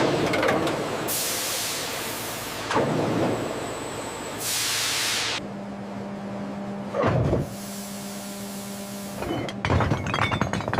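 Deep-draw press machinery working: two bursts of hissing air release, heavy thuds, and a clatter of knocks near the end, over a steady hum that sets in about halfway through.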